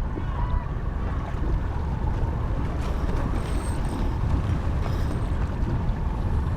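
Steady rumble of wind on the microphone and water noise, recorded out on the water from a boat.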